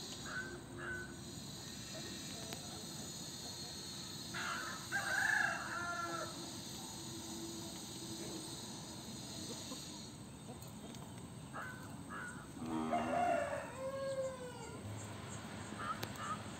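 A rooster crowing twice, about four seconds in and again about twelve seconds in, with a few short clucks in between.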